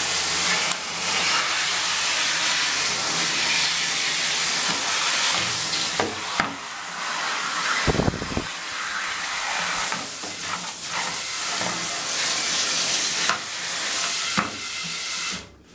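Steam cleaner jetting steam onto the plastic parts of a cassette recorder: a steady loud hiss with a few short knocks and a low thump about eight seconds in. It cuts off abruptly just before the end.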